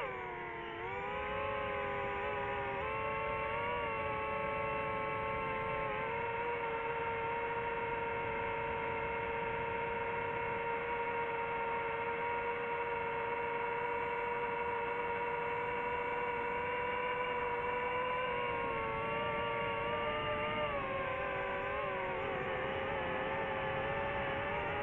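Quadcopter drone's propellers and motors whining in a steady multi-tone hum. The pitch drops at the start, holds level for most of the time, and wavers up and down near the end as the drone changes thrust.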